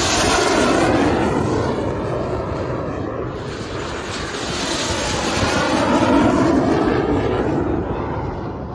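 Fixed-wing aircraft engine noise as aircraft pass close by on departure. The sound swells twice, about a second in and again around six seconds in, with a slowly shifting, phasing tone.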